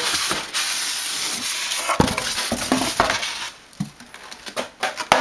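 Packaging being handled as a boxed device is lifted out: styrofoam end caps scraping against a cardboard box and a plastic bag rustling, with a couple of knocks. The rustling is dense for about three and a half seconds, then thins to scattered crinkles.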